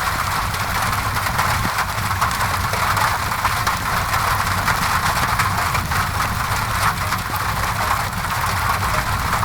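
Steady rain on a window mixed with the crackling of a wood fire in a fireplace: an even hiss with many small scattered pops and snaps, over a low steady rumble.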